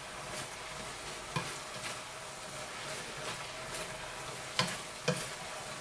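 Minced beef sizzling in a frying pan as it is stirred with a silicone spatula: a steady frying hiss, with a few sharp knocks of the spatula against the pan, one about a second and a half in and two near the end.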